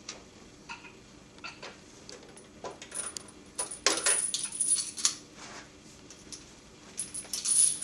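Metal chain and handle of a back and leg dynamometer clinking and rattling as they are handled, in short clusters, loudest about four seconds in and again near the end.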